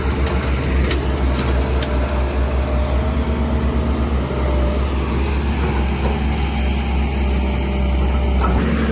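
Heavy diesel engine of construction machinery running with a steady low throb; its tone shifts about eight and a half seconds in.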